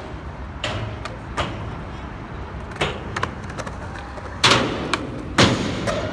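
Skateboard wheels rolling over concrete with a steady low rumble, punctuated by a series of sharp wooden clacks of boards hitting the ground, the two loudest near the end.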